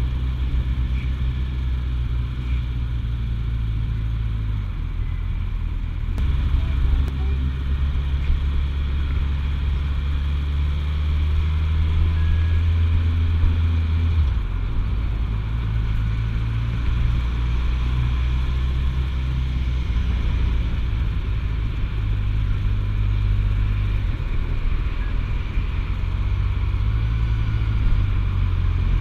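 Suzuki GSF1250S Bandit's inline-four engine running at low town speed, its low note stepping up and down several times with throttle and gear changes.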